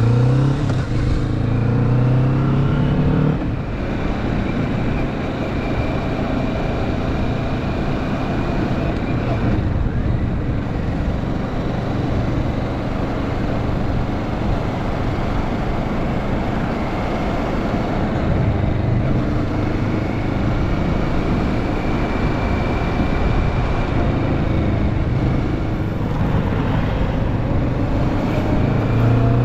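Kawasaki Vulcan S 650's parallel-twin engine accelerating, its pitch rising for the first few seconds up to a gear change. It then runs at a steady speed under a constant rush of noise, and its pitch climbs again near the end.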